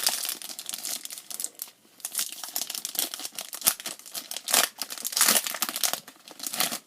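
Foil Pokémon booster pack wrapper crinkling as it is handled, with irregular sharp crackles.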